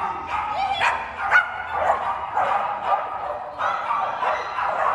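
Dog barking repeatedly while running an agility course, two or three short barks a second.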